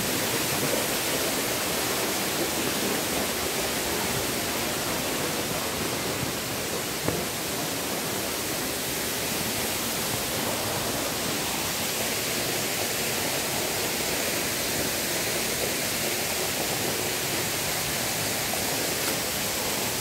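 Steady rushing of a waterfall and its stream, an even hiss, with one brief knock about seven seconds in.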